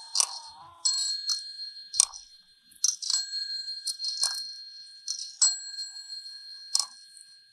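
A desk call bell is struck about eight times at uneven intervals, each ding ringing on briefly.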